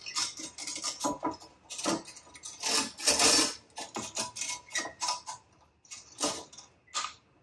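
Metal clinks and knocks of a propane tank being shoved and seated into a truck-bed tank mount: a quick run of short clanks and rattles that thins out about five seconds in, leaving a few scattered knocks.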